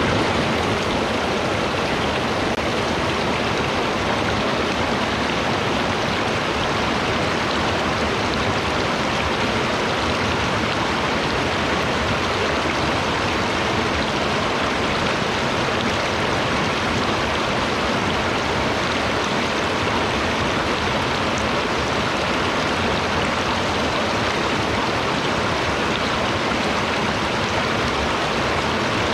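Steady, even rushing of running water, like a forest stream, unchanging throughout.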